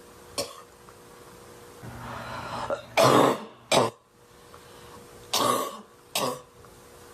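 Woman's harsh barking cough in a fit: a short cough, a long rising breath-like sound, then two pairs of loud coughs.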